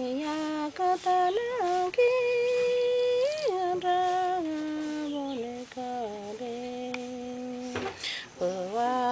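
A woman singing an icaro, a Shipibo healing song, unaccompanied: long held notes that slide up and down between pitches, with a few short breaks.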